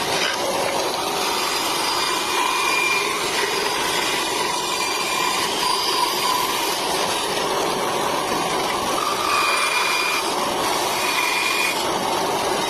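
Mini bandsaw running steadily while cutting wood, with a high-pitched whine that comes and goes as the blade works.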